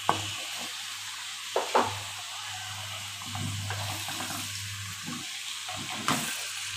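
Potato slices and spices sizzling as they fry in an aluminium pot, a steady hiss. A few short knocks of a wooden spoon against the pot come through, a cluster of them near the end as the stirring starts.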